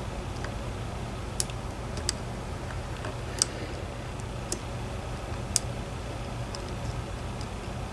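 Sharp, irregular metallic clicks of a pick and tension tool working the pins of a DOM IX 10 dimple lock, over a steady low hum.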